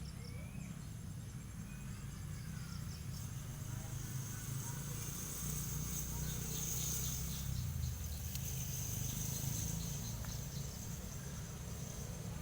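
Insects chirping: a steady high-pitched drone with rows of short, quick repeated pulses, over a continuous low rumble.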